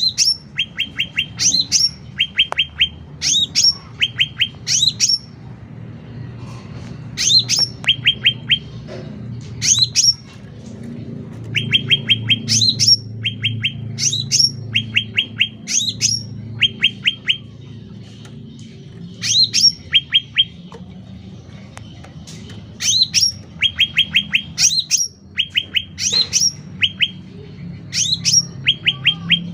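Black-headed bulbul (cucak ranting) singing loudly in repeated phrases: each an upswept whistle followed by a quick run of short clipped notes, given in bursts with short pauses between. A low steady hum runs underneath.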